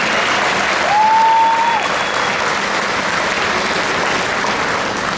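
Audience applauding after a musical performance, with one steady whistle about a second in that lasts just under a second.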